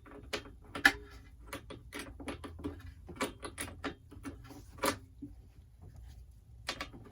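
Irregular light metallic clicks and taps from a wrench working the spark plug out of the Echo PB-755T blower's engine, pausing for about a second and a half before a few more clicks near the end.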